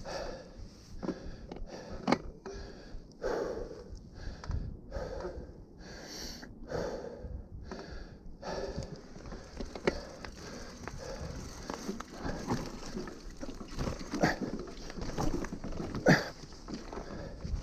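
Heavy breathing from a mountain biker, about one breath a second, with sharp clicks and knocks from the bike and tyres on a rough dirt trail. The loudest knocks come about two seconds in and near the end.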